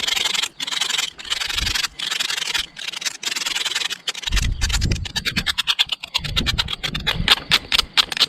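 Stainless steel blade of a Victorinox Forester pocketknife scraping and grinding against a brick in rapid, repeated strokes. A few dull knocks come in the middle.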